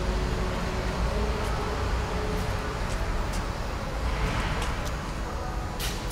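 Steady low machinery rumble and hiss in a machine hall, with a few scattered sharp ticks, the sharpest near the end, and a short rush of hiss a little past halfway.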